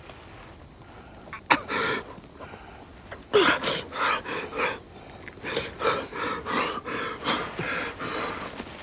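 A badly wounded man's labored, wheezing breathing: a sharp gasp about a second and a half in, then from about halfway a run of rapid, ragged gasping breaths as he struggles for air.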